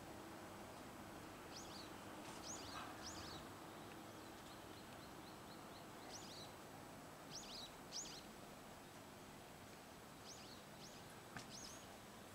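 Small birds chirping faintly over quiet background noise: short, high, down-sweeping chirps in groups of two or three, every few seconds.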